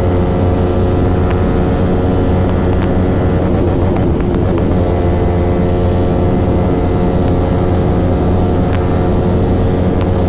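KTM RC 200's single-cylinder engine running through an aftermarket SC Project-style full-system exhaust, holding a steady engine speed while the bike is ridden, loud and even throughout.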